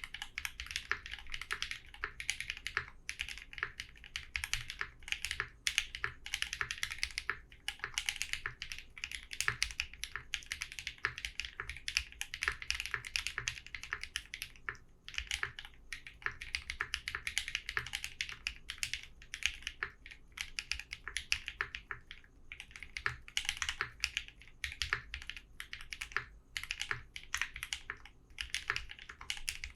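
Thermal mechanical keyboard with Raed switches being typed on in quick, steady runs of clacking keystrokes, broken by brief pauses about 7, 15 and 22 seconds in.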